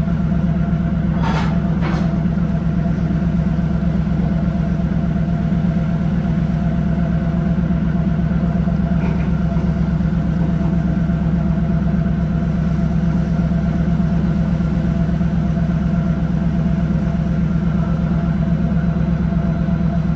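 A fishing trawler's diesel engine running at a steady drone, with two sharp knocks about a second in.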